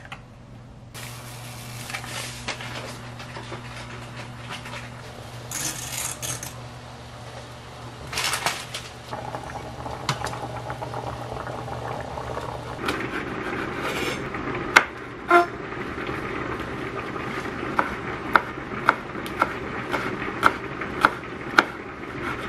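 Water boiling in a pan, over a low steady hum. Near the end, a kitchen knife chops perilla leaves on a wooden cutting board, about two sharp chops a second.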